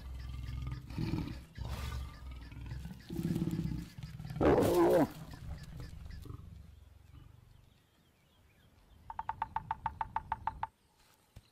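Lions growling low during mating, rising to a loud snarl about four and a half seconds in. Near the end, a woodpecker's rapid rattle of about ten strokes a second.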